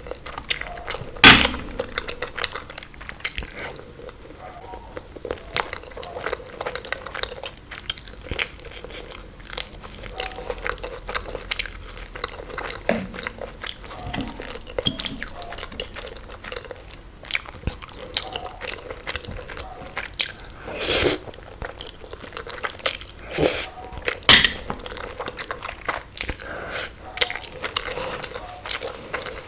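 Close-miked eating: chewing and crunchy bites with many small wet mouth clicks, and a few louder sharp crunches, one about a second in and two about two-thirds of the way through.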